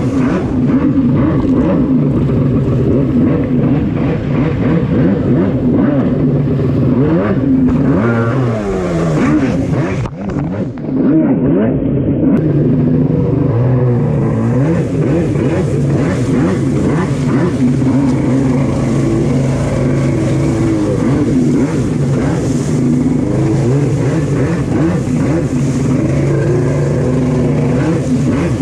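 Stand-up jet ski engine running hard under throttle, with water spray and wind over it. Its pitch dips and climbs again around eight seconds in, and it briefly drops in loudness a couple of seconds later before coming back up.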